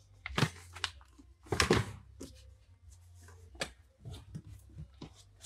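Items being handled in a large cardboard box: a few short rustles and knocks as books and packing material are moved about, the loudest about a second and a half in.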